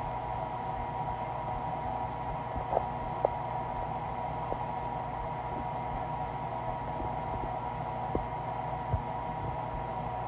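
Stomach sounds picked up at close range: a steady low hum with a few faint clicks scattered through it, and no loud growl.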